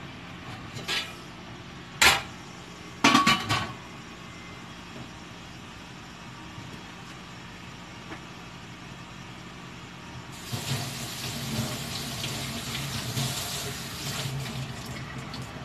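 Kitchen clatter: a few sharp knocks and clinks of dishes or utensils in the first few seconds, then water running from a tap into a sink from about ten seconds in.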